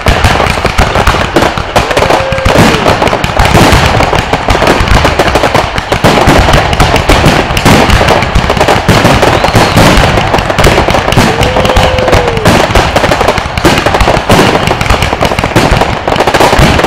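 Aerial fireworks going off in a rapid, continuous barrage: overlapping bangs and dense crackling from many shells bursting overhead, loud and unbroken.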